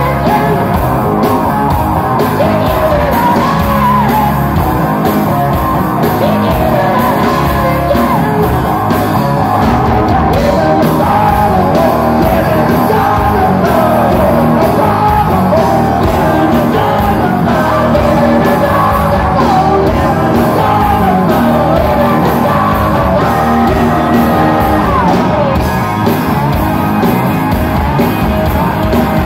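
Live hard-rock band playing loud through amplifiers: electric guitars, bass and drums, with a lead vocal singing over them, carried by the echo of a large hall.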